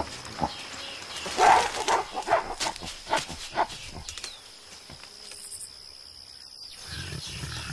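Mountain gorillas giving a run of short, sharp bark-like calls and grunts, bunched between about one and four seconds in, with a faint steady high whine underneath.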